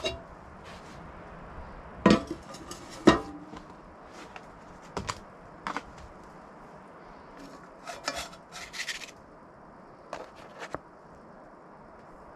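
Cooking utensils knocking and clinking against a pan and stove in scattered strikes, the two loudest about two and three seconds in, with a short rattle of clinks around eight to nine seconds in.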